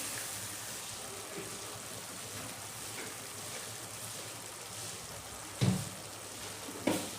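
Masala paste and a little water sizzling steadily in hot oil in a pan, with two short knocks about a second apart near the end.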